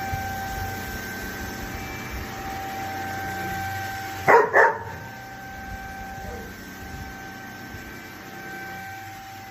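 Deerma EX919 handheld dust mite vacuum running with a steady high whine. A dog barks twice in quick succession a little over four seconds in, louder than the vacuum.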